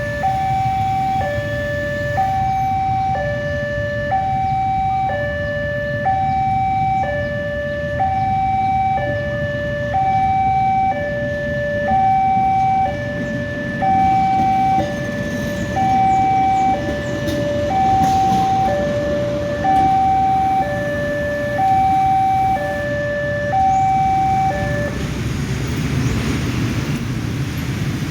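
Two-tone emergency vehicle siren, alternating a high and a low note of about a second each, over a steady low rumble; the siren stops a few seconds before the end.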